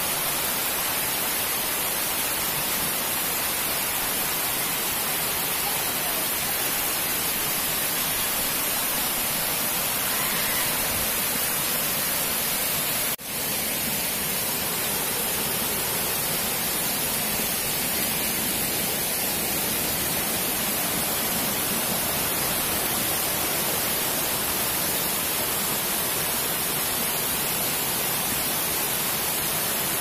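Waterfall cascading over rock slabs: the steady rushing hiss of falling and churning water, dipping for a moment about halfway through.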